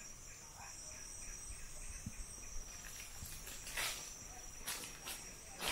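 Crickets calling steadily in the forest, a faint, thin, continuous high tone, with a few brief rustles about four to five seconds in.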